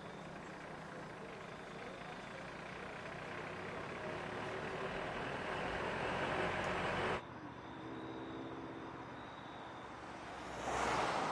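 Vehicles driving past on a road: a van's engine and tyres growing steadily louder as it approaches, cut off abruptly about seven seconds in, then another car passing close near the end.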